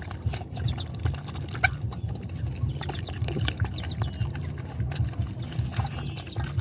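Several puppies lapping and slurping wet food from a basin, a fast, steady run of wet smacking sounds.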